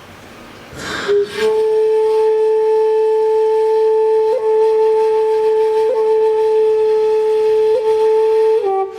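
A woodwind instrument plays one long, steady note: a breathy attack about a second in, the note held for about seven seconds with three quick grace-note flicks, then a step down to a slightly lower note near the end.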